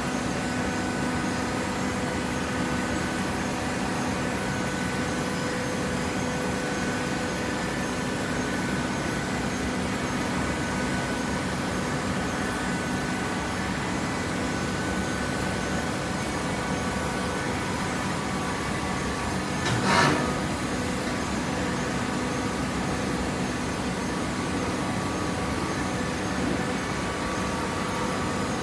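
Horizontal hydraulic baler's power unit running steadily, an electric motor driving the hydraulic pump with a constant hum. One sharp knock about two-thirds of the way through.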